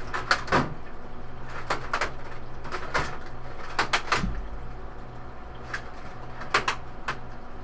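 Handling noise from a plastic quadcopter body turned in the hands: about a dozen irregular light clicks and knocks over a steady low hum.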